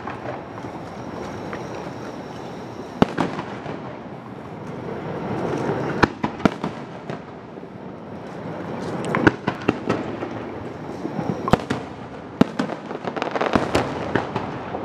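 Aerial firework shells bursting, with about six sharp bangs a few seconds apart and stretches of crackling between them.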